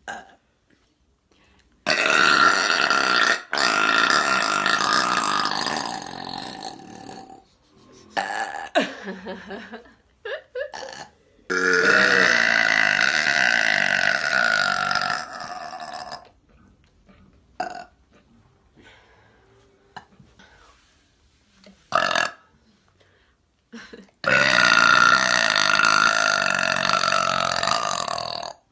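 A woman belching: three long, loud burps, each held for about four to five seconds, with a few short, quieter sounds between them.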